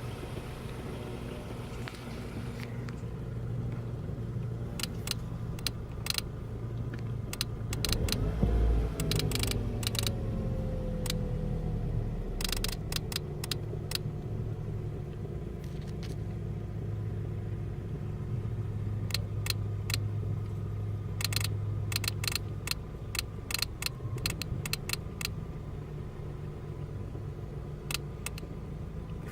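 2003 Ford Focus ZX3 running with a steady low hum, overlaid by irregular clusters of sharp electrical ticks that come and go, with a louder low surge about eight seconds in. The ticking is the sign of a recurring electrical fault that makes the headlights flash in sync and persists despite new alternators, battery, cables, fuses and relays; the owner wonders whether the computer or the relay box is to blame.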